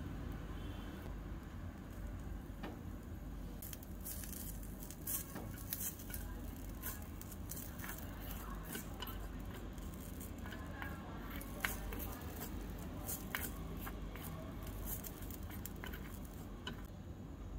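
A small metal spoon stirring and scraping spiced food in a miniature steel frying pan, making irregular clicks and light crackling that start about four seconds in, over a low steady hum.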